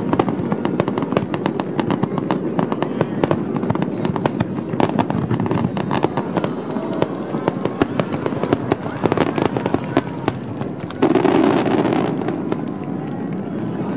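Aerial fireworks bursting, with dense crackling and many sharp pops. About eleven seconds in, a sudden, louder, denser burst lasts about a second before the crackle thins out.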